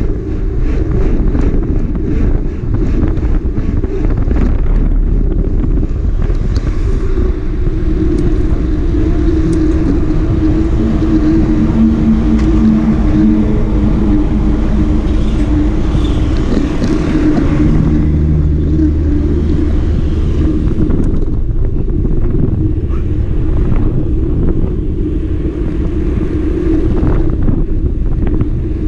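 Motorcycle riding along, its engine running under heavy wind rush on the microphone. The engine note shifts in pitch a few times through the middle.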